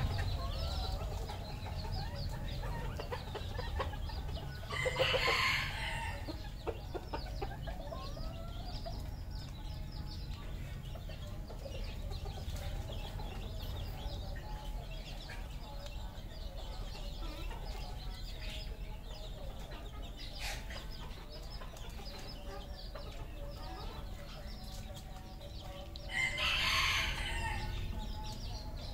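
Red junglefowl roosters crowing, one short crow a few seconds in and another near the end, over continuous clucking from the flock.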